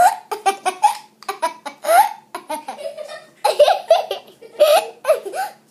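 Young girls laughing in repeated short bursts of giggling.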